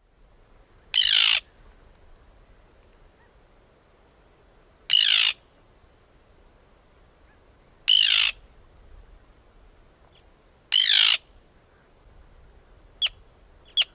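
Arctic terns calling: four harsh calls, each under half a second and about three seconds apart, then two short clipped calls near the end.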